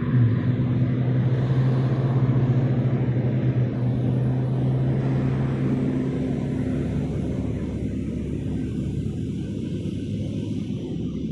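A vehicle engine's steady low hum that fades away about halfway through, leaving a low rumble.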